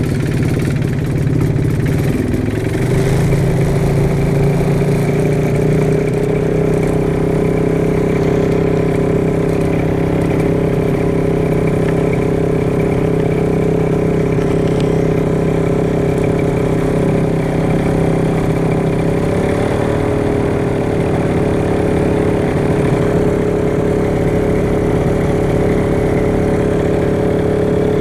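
The Aerolite 103 ultralight's two-stroke engine and pusher propeller, running steadily at low power just after starting. The engine note shifts slightly about twenty seconds in.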